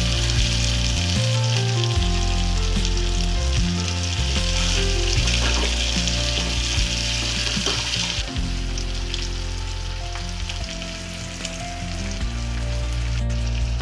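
Food frying in hot oil in a pan, a steady sizzle that weakens about eight seconds in, with background music.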